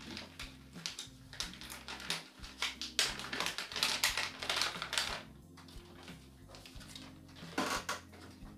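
Packaging being handled and pulled open: rapid crinkling and clicking, busiest from about three to five seconds in, with another short rustle near the end, over quiet background music.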